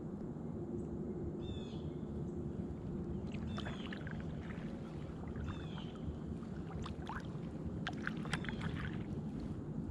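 Kayak paddling: a steady low wash of water around the boat and paddle. Over it a bird sings a short high chirping phrase, repeated about every two seconds, with a few sharp clicks about three-quarters of the way through.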